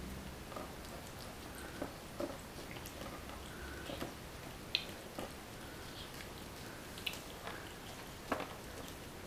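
A cat chewing pieces of melon, eating from a plastic container: irregular chewing sounds with scattered short clicks.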